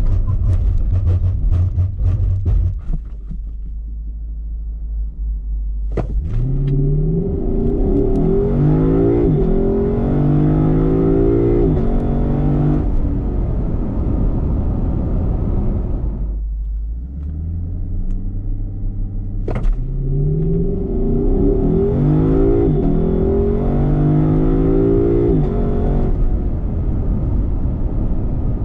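A sports car's engine making two full-throttle runs from a standstill. Each run opens with a sharp crack, then the note climbs and drops back with each quick automatic upshift for about six seconds before the engine falls back to a low rumble.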